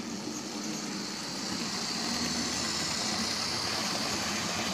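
Lima OO-gauge model of a BR Class 117 three-car diesel multiple unit running along the track: a steady whirr of its electric motor and wheels on the rails, a little louder from about halfway through.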